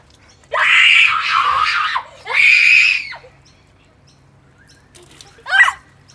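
A child screaming loudly and high, in two long screams of about a second and a half and under a second, then one short shriek near the end, while being sprayed with water in play.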